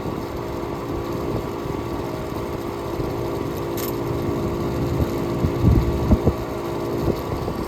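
Air conditioner running: a steady hum from its compressor and condenser fan, with a few low thumps a little past halfway.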